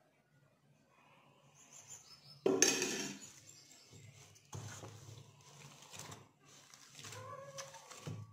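Hands kneading oiled methi paratha dough in a stainless steel bowl, with irregular squishing of the dough and the bowl rubbing and shifting. A single loud metal clatter comes about two and a half seconds in, before the kneading starts.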